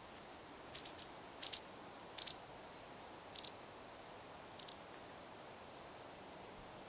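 A run of short, sharp high clicks coming in quick pairs and one triple, about five clusters over four seconds, then stopping; a faint steady hiss underneath.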